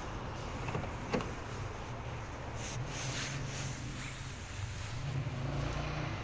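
A car door unlatches with a sharp click about a second in. Then comes rustling as the floor carpet flap is handled, over a steady low rumble of phone-handling noise.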